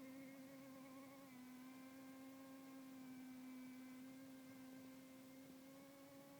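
Faint, steady engine drone from a jet boat, one held pitch with a slight step up about a second in.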